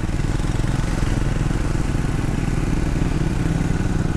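Triumph Speed 400's 398 cc single-cylinder engine running steadily under way, pulling along an uphill road at an even engine speed.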